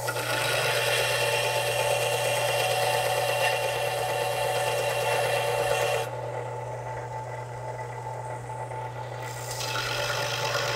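Belt sander grinding the steel rear of a 1911 pistol's slide and frame, knocking down the high extractor and ejector so they sit level with the slide. The motor hums steadily; the grinding runs about six seconds, drops away for a few seconds, then starts again near the end.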